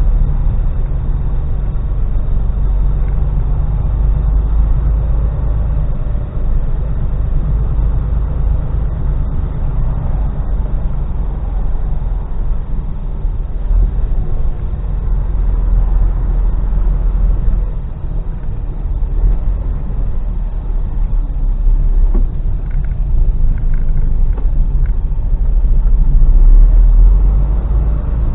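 Steady low rumble of a Mercedes-Benz Actros lorry's diesel engine and road noise, heard inside the cab while it crawls along in slow queuing traffic.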